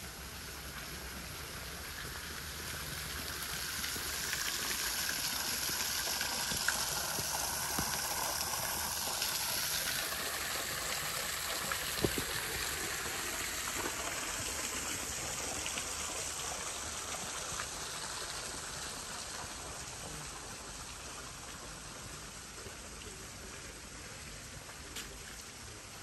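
Steady hiss of running water, swelling over the first few seconds and fading gradually after about ten seconds.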